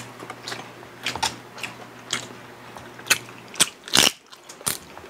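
Close-miked mukbang eating of crispy lechon pata (deep-fried pork knuckle): irregular bites, crunches and wet mouth clicks as two people chew. The crunches are loudest in the second half.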